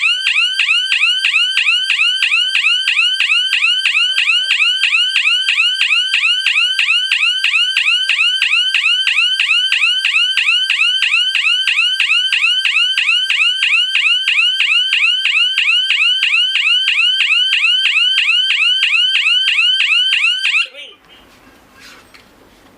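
GSM anti-theft alarm panel's electronic siren sounding a loud, fast warble of repeated pitch sweeps: the intrusion alarm set off by defense zone 1 while the system is armed. It cuts off suddenly about 21 seconds in.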